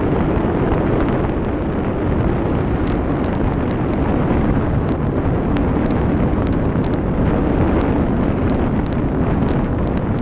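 Wind buffeting the microphone of a camera on a moving light aircraft, a Stinson 108-3: a loud, steady low rush, with faint ticks appearing from about two seconds in.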